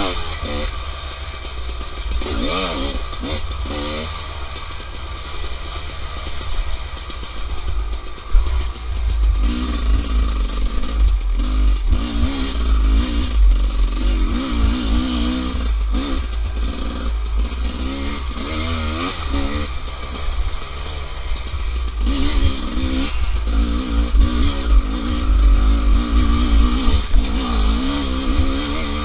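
Off-road dirt bike engine revving up and down as the throttle is worked on a tight trail, over a heavy low rumble.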